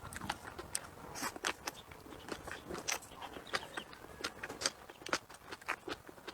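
A person eating: close-up biting and chewing, with irregular crisp crunches and clicks, a few per second.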